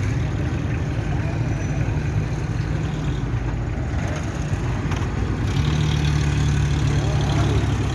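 A motor running steadily with a low rumble that gets a little stronger about five and a half seconds in.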